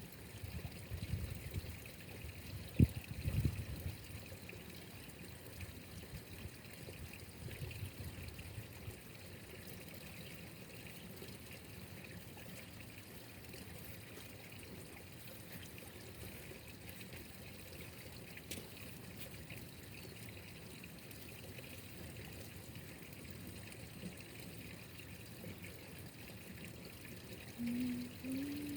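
Water trickling steadily, with a sharp knock about three seconds in and some low rumbling in the first few seconds.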